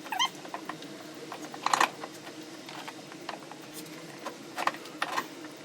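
A few light clicks and knocks of a metal chassis brace and its fittings being handled and worked into place, over a steady low hum.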